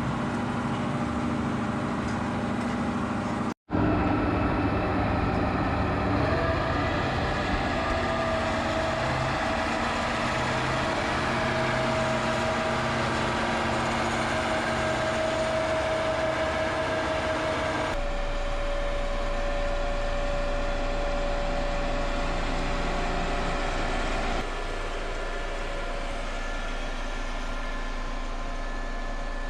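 Tractor engine running steadily while packing a silage bunker. The tone changes abruptly about 4, 18 and 24 seconds in, with a brief dropout at the first.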